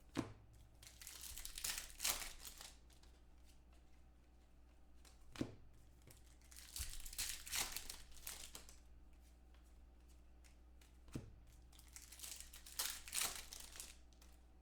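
Foil wrappers of trading-card packs being torn open and crinkled, in three rounds, each starting with a sharp click followed by a couple of seconds of tearing and rustling.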